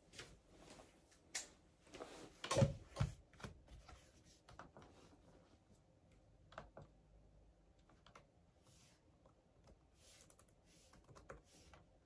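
Typing on a laptop keyboard: soft, irregular key clicks, with a few louder knocks about two and a half to three seconds in.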